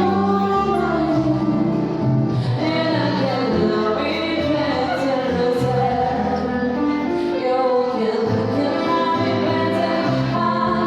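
Background music with a singing voice, most likely a woman's.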